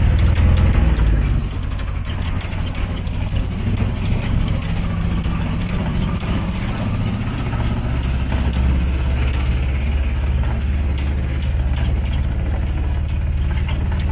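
Small tuk-tuk engine running steadily with a low drone while the vehicle drives along, a little louder in the first second or two.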